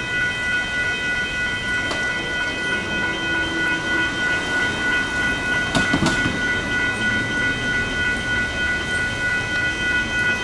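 WCH electronic grade-crossing bells on the crossing signals ringing steadily with an even, repeating ding during a test activation of the crossing. A brief knock with a low rumble comes about six seconds in.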